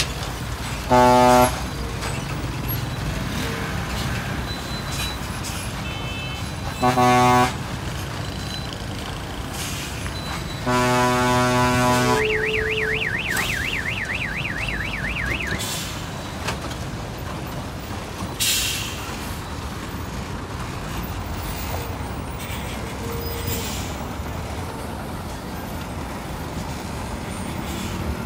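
Jammed road traffic of buses and trucks: engines running, with three loud horn blasts, two short ones about one and seven seconds in and a longer one about eleven seconds in, then a warbling, siren-like musical horn for about three seconds. A short hiss sounds near the middle.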